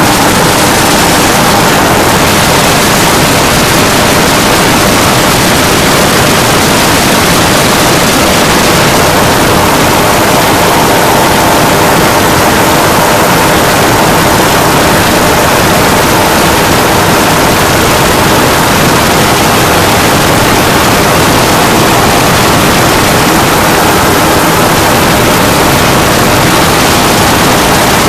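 A powered parachute's engine and propeller running steadily in flight, heard close up under loud wind rush on the microphone.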